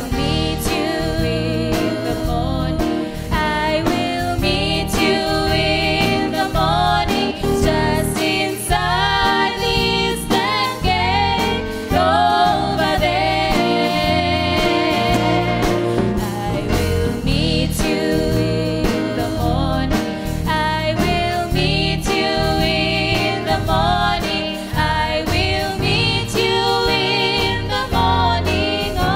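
Two women singing a gospel song together, accompanied by a live band with keyboard and bass guitar.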